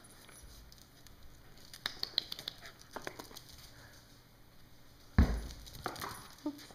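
Pembroke Welsh Corgi puppy's claws clicking and scrabbling on a tile floor as it works at a ball under a couch, with one loud thump about five seconds in.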